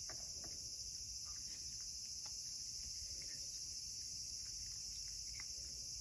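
Steady high-pitched chorus of insects, with scattered faint soft ticks as a cat chews and licks wet food from a plate.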